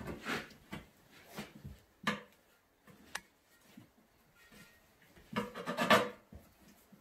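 A tyre lever working the bead of a new rear tractor tyre over a steel wheel rim: rubber rubbing and scraping against the rim, with a couple of sharp clicks of the lever, and the loudest scrape near the end.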